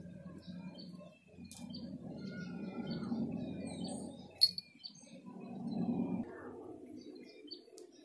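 Buffy fish owl tearing at a sparrow held in its talons: low rustling and ripping in three spells, with one sharp click about four and a half seconds in. Small birds chirp faintly in the background.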